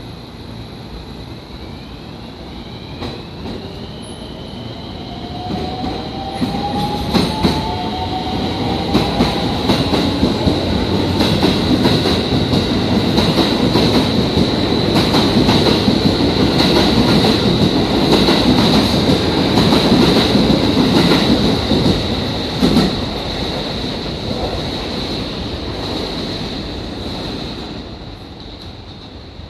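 JR West electric train running along the platform: a rising electric-motor whine in the first few seconds, then the loud rumble of the carriages with rapid clatter over the rail joints and a steady high wheel squeal, fading away near the end.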